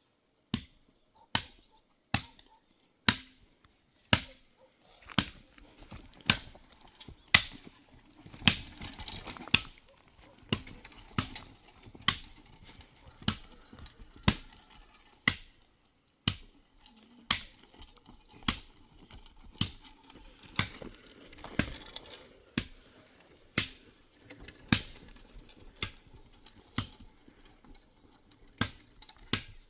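A series of sharp knocks or chops, evenly paced at about one a second, with a brief rustling noise between some strokes.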